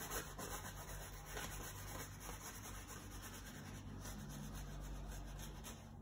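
Oil-paint brush stroking across a stretched canvas: a soft, scratchy rubbing that stops near the end. A low steady hum runs underneath.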